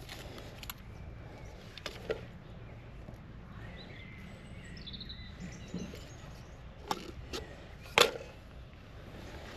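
Soft scrapes and crunches of a hand trowel and fingers working crumbly garden soil while digging planting holes, with a few sharp knocks, the loudest near the end. A bird chirps faintly in the middle.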